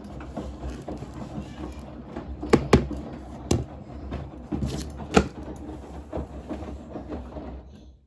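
Clear plastic washing-powder box and blue plastic scoop being handled, clattering with several sharp knocks, the loudest near the middle, over a steady low hum.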